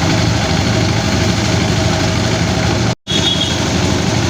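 Engine-driven rice threshing machine running steadily with a continuous low mechanical pulse. The sound cuts out completely for a split second about three seconds in, then picks up again.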